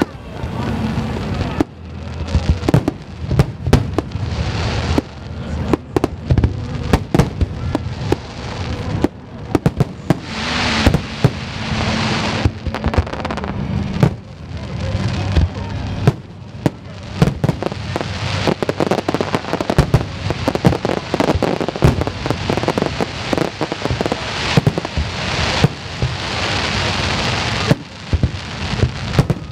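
Aerial fireworks display: a dense, irregular run of shell bursts and bangs throughout, with stretches of hissing crackle about ten seconds in and again near the end.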